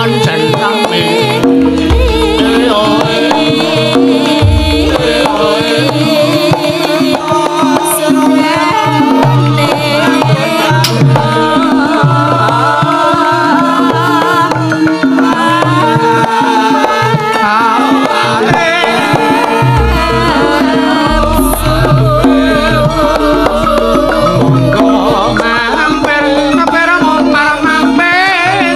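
A Javanese sinden (female singer) singing with wavering vibrato to live gamelan accompaniment, with kendang hand drums keeping a busy rhythm and deep low notes underneath.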